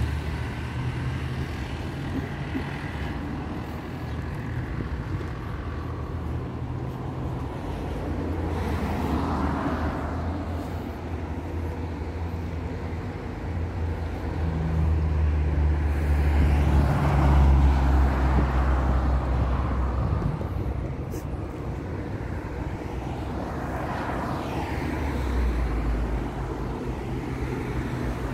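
City street traffic: a steady low engine rumble with cars passing one after another, the loudest going by about halfway through.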